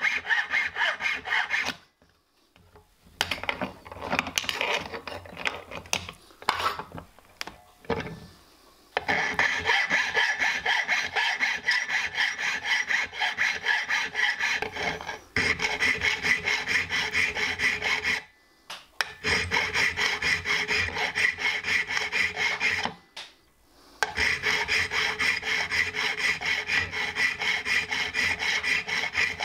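Hand file rasping back and forth over a small metal part held in a vise, with hardened filing discs as its guide, shaping a tapered, radiused profile. The strokes come quick and even, with a few short pauses and a choppier stop-start stretch early on.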